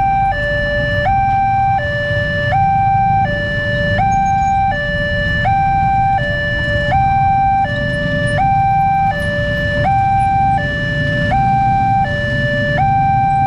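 Railway level-crossing alarm sounding its two-tone electronic warning. It alternates steadily between a lower and a higher tone, each held about three quarters of a second, over a low rumble of passing motorcycle and truck traffic.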